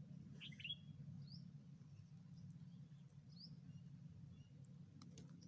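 Faint bird chirps: a brief call about half a second in, then short single rising chirps about every two seconds, over a low steady hum.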